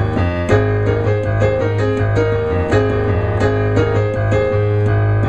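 Background piano music: a repeating keyboard melody over a steady low bass note.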